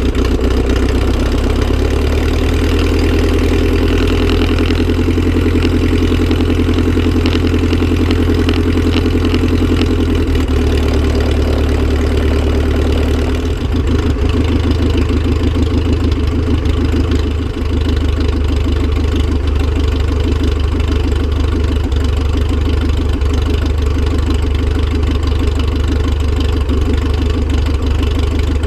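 Continental C-90 air-cooled flat-four engine and propeller of a clipped-wing Piper Cub running steadily at low power on the ground, its note shifting slightly about thirteen seconds in.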